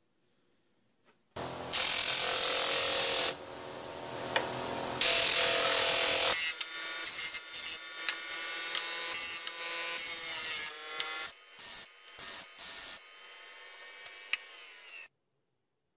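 Shop-made electric disc sander running. About a second and a half in comes a loud rasping stretch as wood is ground on the disc. Then comes a steadier hum broken by short grinding touches, which cuts off shortly before the end.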